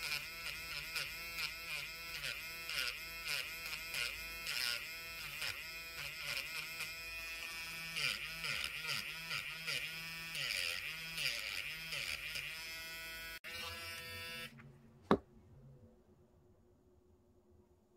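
Small pen-style electric nail drill with a sanding-band bit buzzing as it files a fingernail, its pitch dipping again and again, about two or three times a second, as the bit is pressed onto the nail. The motor stops about 14 seconds in, followed by a single sharp knock.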